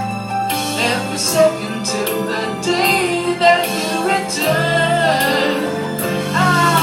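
A song playing: a sung melody over sustained low accompaniment notes, with regular light percussion strokes.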